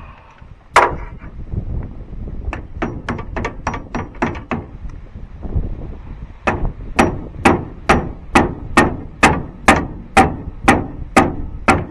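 Hammer blows on a battery terminal being forced onto its post. One blow comes first, then a run of quick light taps, then about a dozen steady, heavier strikes at roughly two to three a second.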